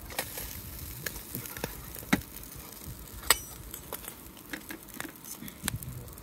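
Saury sizzling on a wire-mesh charcoal grill, with a wood fire crackling beside it. Scattered sharp clicks and pops, the loudest about two and three seconds in, mix fire crackle with metal tongs lifting the fish off the grill into a metal bowl.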